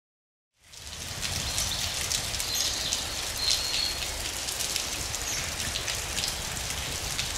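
Steady rain falling, with many close drops pattering; it fades in about half a second in.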